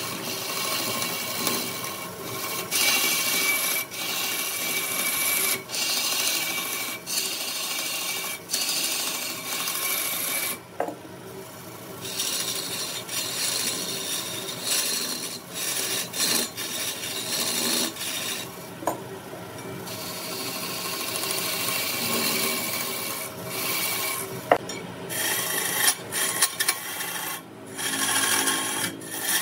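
Wood being abraded by sanding or rasping: a rough scraping noise in long passes of a few seconds, with brief pauses and a few sharp clicks between them.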